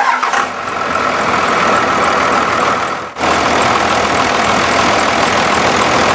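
A 2001 Dodge Ram 2500's 5.9-litre Cummins turbo-diesel inline-six running steadily. The sound cuts out for a moment about three seconds in, then carries on.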